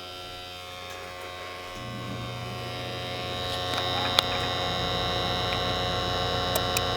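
Draft inducer motor of a 90% American Standard gas furnace starting and spinning up, a steady hum rising in loudness over a couple of seconds before settling into steady running; a sharp click sounds about four seconds in. This is the pre-purge stage of the furnace's start-up, before the igniter and burner.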